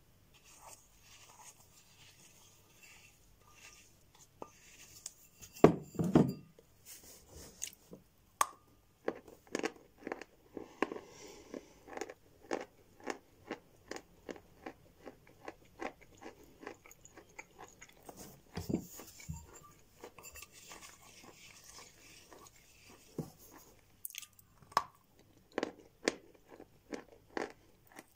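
A person biting and chewing a block of dry sawn chalk, Sevryukovo edible chalk, dipped in soaked chalk paste. It starts with a few soft scrapes, then a loud crunch about six seconds in, followed by a steady run of sharp crunches about once or twice a second.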